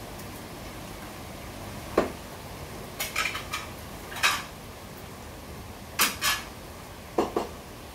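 Scattered sharp clinks and knocks, a single one then a short cluster, then two close pairs near the end, over a faint steady background hiss.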